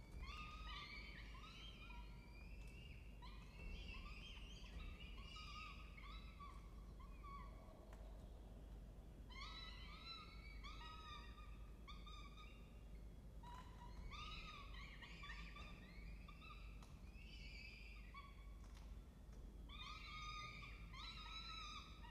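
Peregrine falcon chicks begging while being fed: faint, rapid, high-pitched repeated calls that come in runs, with two short pauses.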